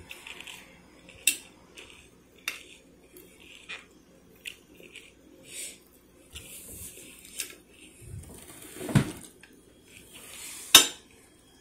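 Metal fork clinking and scraping against a stainless steel bowl while eating: sharp clinks a second or so apart, a duller knock, then the loudest clink near the end.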